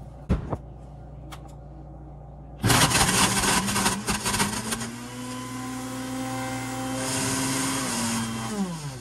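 Countertop blender switched on about three seconds in, clattering as it chops frozen mixed berries, then running with a steady whine and winding down in pitch as it stops near the end; the frozen fruit has not blended well. A light knock comes just before.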